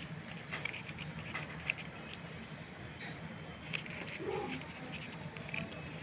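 Small paper booklet being handled: scattered faint clicks and rustles of the paper over a steady low hum, with one brief low pitched sound a little past the middle.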